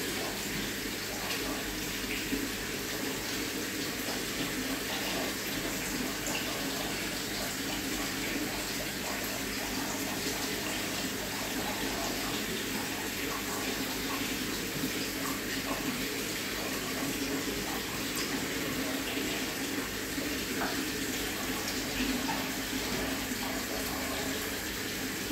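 Water running steadily through an aquarium's filtration and splashing into the tank, with one of its two return pumps dead.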